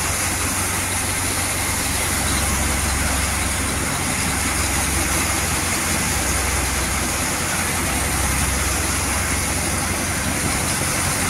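Pritam Singh & Sons wheat thresher running, driven off a Mahindra tractor's PTO while threshing wheat: a steady mechanical drone made of a low hum and a broad hiss.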